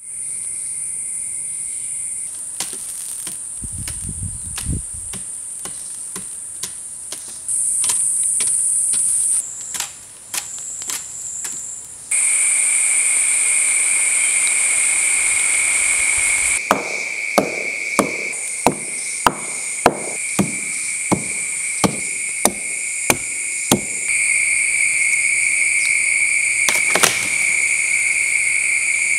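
A run of about a dozen sharp, evenly spaced knocks, roughly one every half-second, from a stone hand tool chopping through a partly burnt log. The knocks sit over a steady high-pitched drone of forest insects that runs underneath throughout.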